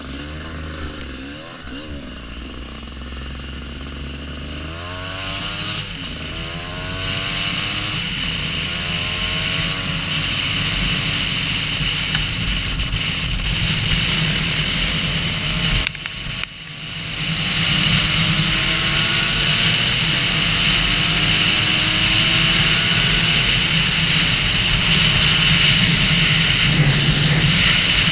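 Husqvarna WR250 two-stroke enduro motorcycle engine revving up through the gears as it accelerates, with heavy wind noise. The engine briefly drops off about halfway through, then runs hard at steady high revs.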